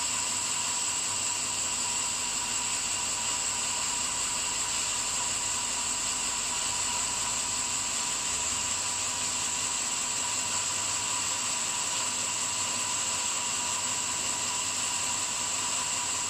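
Power saw with a diamond concrete-cutting blade running steadily: a continuous high whine over hissing noise.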